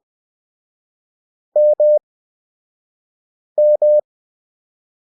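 Morse code practice tone sending two characters about two seconds apart, each made of two long beeps at one steady mid pitch. The characters are keyed at 20 WPM with wide Farnsworth gaps, for a 5 WPM overall pace.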